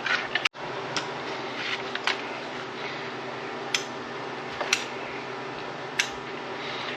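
Steady mechanical hum, like a fan or air conditioner, with a few sharp light clicks and taps scattered through it and a brief cut to silence about half a second in.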